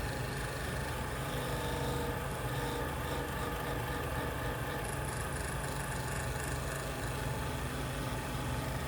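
Woodshop machine's electric motor running with a steady hum.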